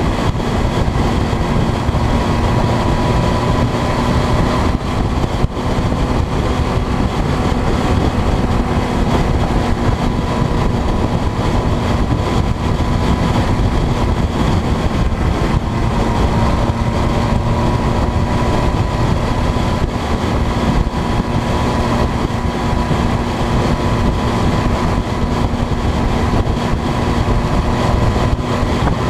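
Steady engine drone and road noise from a vehicle driving at an even speed, with a constant hum and no changes in pace.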